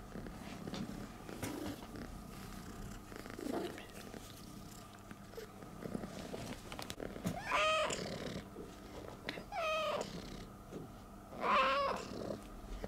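Domestic cat purring steadily close to the microphone while being stroked, with three short meows in the second half, the loudest sounds here.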